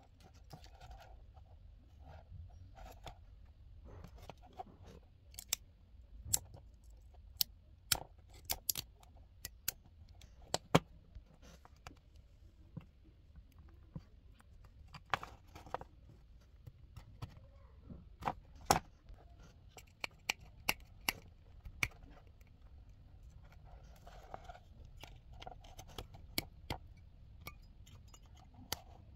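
Irregular sharp clicks and taps of small metal tools and fingers against the plastic case and metal battery contacts of an opened digital device, as a soldering iron tip and needle-nose pliers work at the wires and battery spring.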